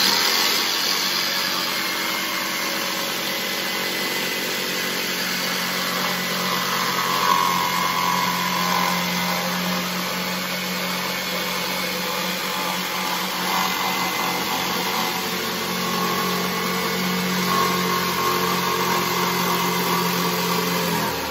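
Corded jigsaw running at full speed, its blade cutting through a sheet of plywood with a steady buzzing and rasping. It stops near the end, in the middle of the cut.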